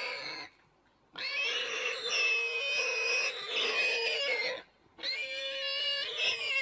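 Warthog squealing in distress while a leopard holds it down and bites it: long, shrill squeals, the tail of one ending just after the start, a long one of about three seconds from about a second in, and another near the end.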